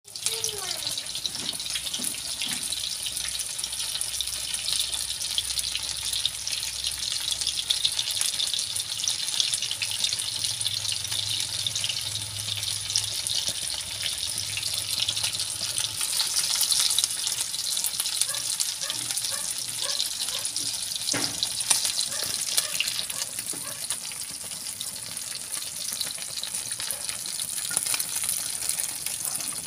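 Small bunog fish (freshwater goby) deep-frying in hot oil in a non-stick wok: a steady, dense sizzle with fine crackling.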